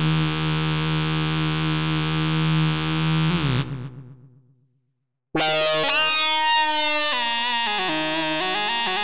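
Kurzweil K2700 synthesizer playing its "4PoleV Lead" patch: a held chord that fades away to silence about four seconds in. After a short gap, a single-note lead line starts, its notes moving in steps and gliding between some of them.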